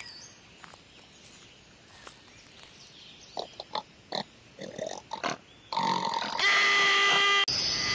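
Cartoon animal vocal sound effects: a few short snorts and grunts, then from about six seconds in a loud, long pitched cry.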